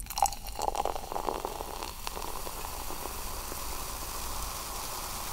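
Prosecco poured from the bottle into a glass flute: an uneven splashing pour over the first couple of seconds, settling into a steady fizzing hiss as the foam rises in the glass.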